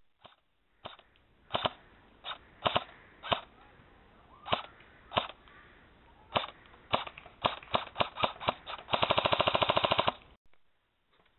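An M4-style airsoft rifle firing: single shots at uneven gaps that come quicker toward the end, then a full-auto burst of about a second at roughly seventeen shots a second that cuts off sharply.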